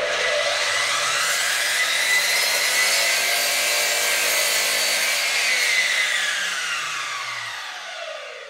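Belt-driven sliding mitre saw cutting through a wooden board, running loud and steady. About two-thirds of the way in, the blade winds down with a falling whine.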